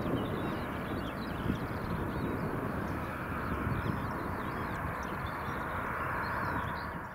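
Steady distant rumble of an Airbus A320-214's CFM56 jet engines as the airliner rolls out along the runway after landing, with many small birds chirping over it; the sound fades out near the end.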